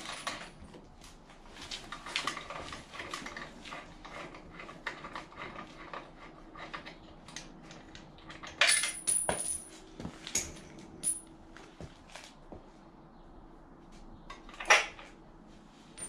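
Hand tools clinking and clicking on a motorcycle's exhaust hanger as the bolt is worked loose with a 6 mm Allen key, with a few sharper metallic knocks about halfway through and one near the end.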